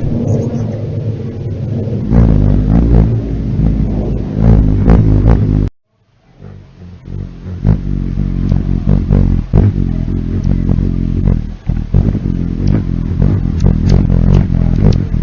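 Hummingbird wings humming close to the microphone, a loud low buzz with scattered short clicks. It cuts out suddenly for about half a second near the middle, then resumes.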